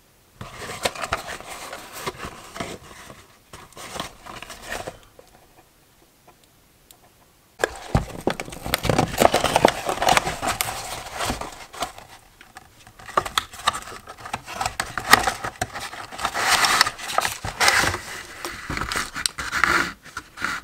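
A cardboard box and its packaging being handled and opened by hand: crinkling, rustling and scraping. There is a short lull in the middle, then a knock, and the crinkling goes on, busier than before.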